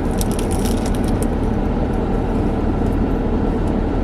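Steady low rumble of a car idling, heard from inside the cabin, with a few soft clicks in the first second and a half.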